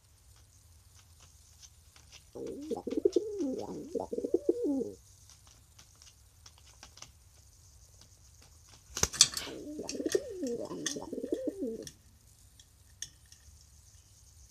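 Pet dove cooing in two low, warbling bouts of about two and a half seconds each, cooing out of excitement. A sharp knock comes just before the second bout.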